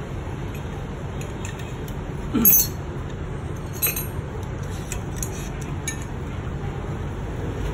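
A few light metallic clinks of tools and engine parts being handled, the loudest about two and a half seconds in and another about a second later, over a steady low rumble.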